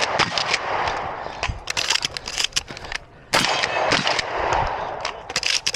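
Shotgun shots fired during a practical shooting stage run, the loudest about three seconds in, with many quick sharp clicks and knocks in between.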